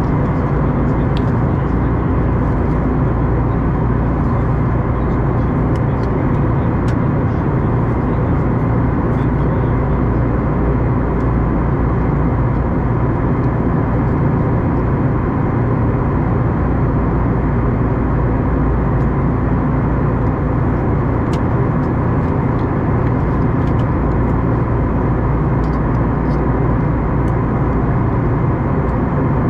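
Airbus A321neo cabin noise heard from a window seat: a steady drone of jet engines and rushing air, with a faint hum of steady tones and the odd small tick from the cabin.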